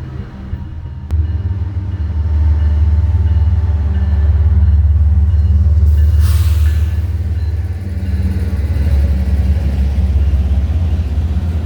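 Diesel freight locomotive engines running under load, a loud deep rumble that steps up suddenly about a second in, with a brief hiss about six seconds in.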